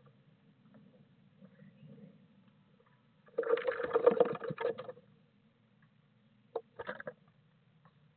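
A blue tit flapping its wings and scrabbling inside a wooden nest box: a loud flurry lasting about a second and a half, midway through. Two short scuffles follow near the end.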